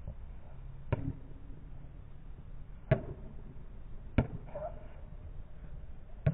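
Pickleball paddles striking a plastic pickleball in a rally: four sharp pocks, roughly one to two seconds apart.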